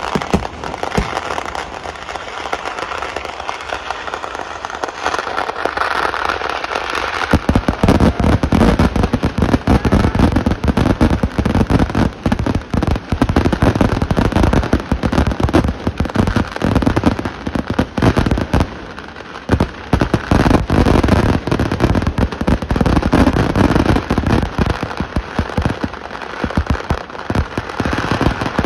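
Kerala temple vedikettu fireworks: a dense barrage of firecracker and aerial shell explosions, rapid overlapping bangs and crackling. About seven seconds in, the barrage turns heavier and deeper, with a short lull about two-thirds of the way through.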